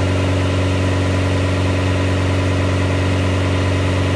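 Car engine running steadily at about 2,760 rpm under load on a chassis dynamometer, holding 40 mph during a steady-state test while its MegaSquirt ignition timing is tuned. The engine note and the dyno's running stay constant, with no revving.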